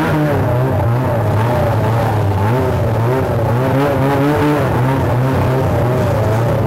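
Two-stroke snowmobile engine running fast and steady after a quick rise in revs at the start, its pitch wavering slightly as the throttle is held.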